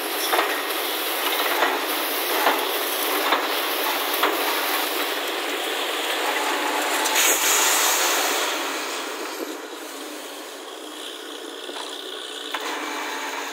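Compressed-air borewell drilling rig blowing muddy water and rock cuttings out of the borehole mouth: a loud, even hiss with scattered sharp knocks. It eases off about nine seconds in as the spray dies away.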